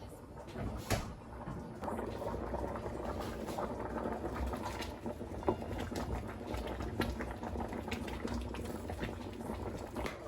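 Food bubbling as it cooks in a pot, a dense run of small pops and crackle that sets in about two seconds in, after a sharp click or two.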